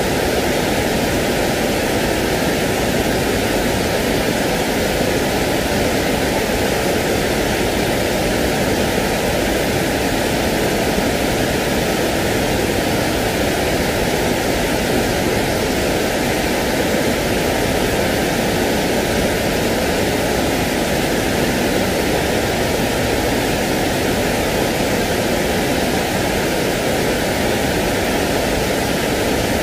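Steady rushing noise from a sleep noise track, perfectly even with no drops, clicks or changes. It is fullest in the low-middle range, with a narrow gap near 1 kHz.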